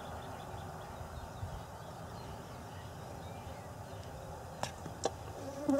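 Open-air ambience: a steady low rumble, likely wind on the microphone, with a few faint bird chirps in the first second or so, then two sharp clicks about half a second apart near the end.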